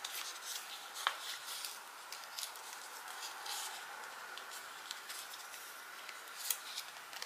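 Hands handling screen-protector kit pieces: faint rustling and crinkling of paper and plastic film, with a few light clicks.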